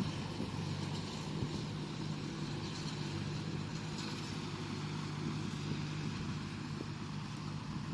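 Bulldozer's diesel engine running steadily at an even pitch.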